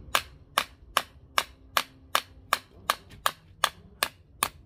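Hammer head of a multitool striking a staple into a piece of wood: about a dozen sharp, evenly spaced blows, roughly two and a half a second, driving the staple fully home.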